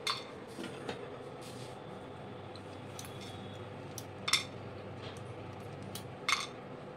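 Knife cutting almonds, clicking and clinking against a hard surface a few times at uneven intervals, the clearest clinks about four and six seconds in, over a steady low hum.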